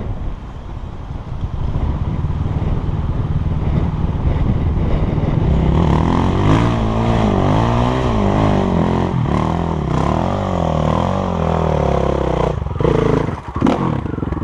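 A dirt bike's engine revving up and down again and again as it climbs a sandy hill and comes closer, getting louder from about five seconds in, over the steady idle of a KTM 690 Enduro's single-cylinder engine.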